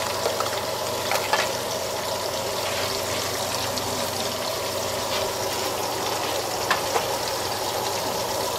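Chicken meatballs with onion, tomato and bell pepper sizzling in oil in a frying pan: a steady frying hiss with a few sharp pops.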